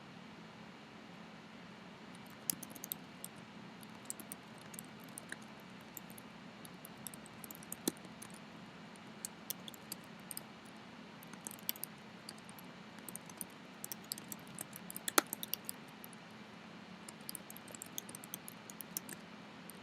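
Typing on a computer keyboard: irregular light key clicks in uneven bursts over a steady hiss, with a couple of louder strokes, one about 8 seconds in and the loudest about 15 seconds in.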